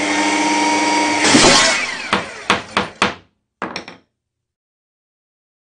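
Logo sting sound effect: a steady mechanical whir, a whoosh about a second in, then a run of sharp knocks that die away.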